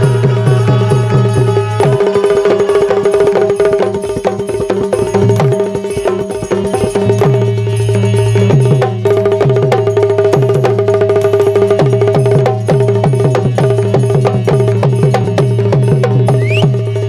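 Instrumental passage of Bundeli Rai folk music: fast, dense hand-drumming over held melodic notes and a low line that steps between notes.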